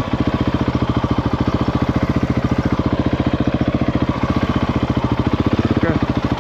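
Husqvarna 701's single-cylinder four-stroke engine running steadily, its exhaust pulses coming fast and even.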